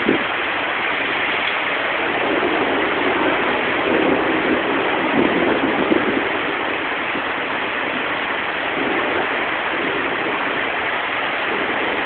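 Heavy rain falling steadily, an even hiss of water.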